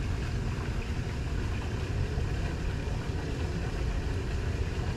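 Steady low rumble with a faint hiss over it, even throughout, with no distinct knocks or calls.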